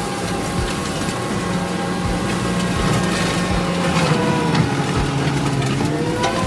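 Kubota SVL65 skid steer's diesel engine working steadily. Its pitch sags about four seconds in, as if lugging under load, and comes back up near the end.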